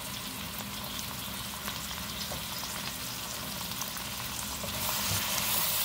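Sliced onions and thin frozen beef sheets frying in a stainless steel pan over medium heat: a steady crackling sizzle that grows louder about five seconds in.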